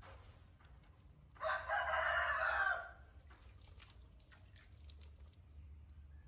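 A single loud, drawn-out animal call lasting about a second and a half, starting about a second and a half in, with faint small ticks and taps around it.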